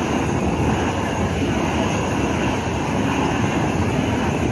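Two handheld butane blow torches burning steadily with a continuous rushing noise as they sear skewered seafood on a griddle.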